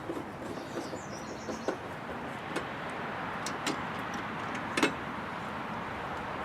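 Scattered light clicks and taps of a screwdriver and tail-light parts being handled, the sharpest about five seconds in, over a steady background hiss.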